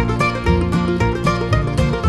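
Background music: plucked-string, bluegrass-style tune with a steady beat.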